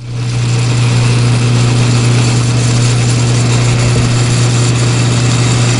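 Vintage Westinghouse Riviera electric fan motor overdriven on 240 volts, twice its rated 115 volts. It comes up to speed within the first half second, then runs with a loud, steady electrical hum under the whir of the spinning blade.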